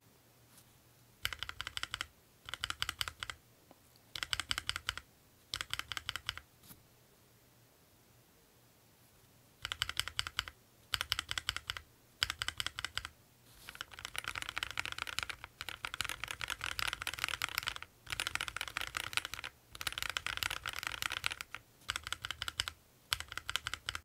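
Mechanical keyboard fitted with Akko Jelly Black linear switches, whose stems and springs are dry-film lubricated, being typed on. First come short bursts of quick keystrokes with gaps and a lull of about two seconds, then steadier, longer runs of typing through the second half.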